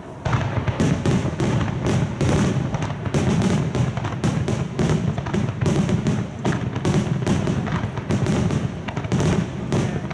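Rapid barrage of aerial firework shells bursting in a wide star-mine sequence, several booms a second overlapping one another with no pause.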